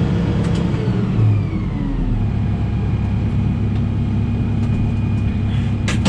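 Tractor engine running with a Claas round baler behind it, heard from inside the cab: a whine falls in pitch over the first two seconds as the machinery slows from working speed, then the engine runs steadily at a lower pitch. A few sharp clicks come near the end.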